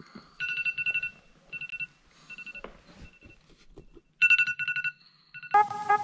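Smartphone ringtone beeping in groups of rapid pulses, two pitches sounding together. About five and a half seconds in it gives way to a louder, busier sound with steady tones and a regular beat.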